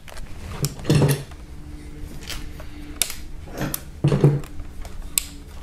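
Scattered light metallic clicks and knocks of hand tools and small engine parts being handled and set down during an engine teardown.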